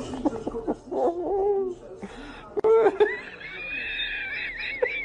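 A person laughing hard, the laughter rising into a high-pitched squealing giggle about halfway through, in quick repeated bursts near the end.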